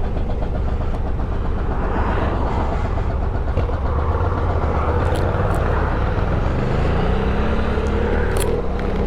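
Adventure motorcycle engine running while riding on the road, under steady wind noise on the microphone. The engine pitch rises near the end as the bike accelerates.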